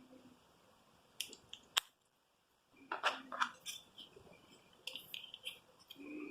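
Faint small clicks, taps and handling noise of a plastic digital angle finder and its battery being fitted, with a few sharper clicks about two and three seconds in.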